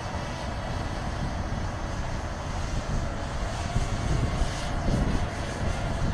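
Ehang Ghost quadcopter's propellers making a faint steady hum as it flies up at height, under wind buffeting the microphone with an uneven low rumble.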